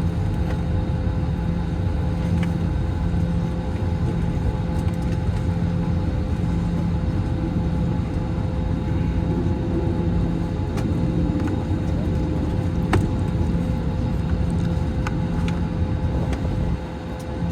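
Airbus A321 during pushback with its engines not yet started: a steady rumble and hum with a constant whine running over it, and a few faint clicks.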